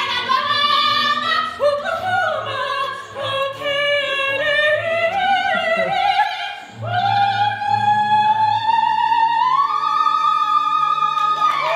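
Two women singing a musical-theatre duet in a full operatic style with strong vibrato over an accompaniment. About seven seconds in they launch into one long held note that climbs higher near the end, the closing note of the number.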